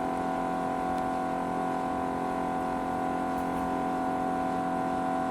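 2 kg DSP mini melting furnace running while it heats a crucible of metal: a steady hum made of several fixed tones, unchanging in pitch and level.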